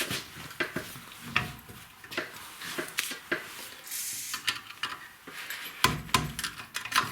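Irregular metallic clicks and clinks of hand tools and rear brake caliper parts being handled during a brake pad change.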